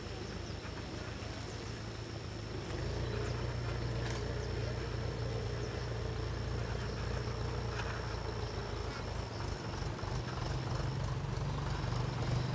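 A low, steady engine hum that gets louder about three seconds in, with a short high-pitched chirp repeating about once a second.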